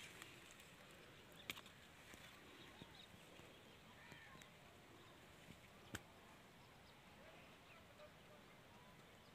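Near silence with a few faint, short bird calls and two sharp clicks, one about a second and a half in and one about six seconds in.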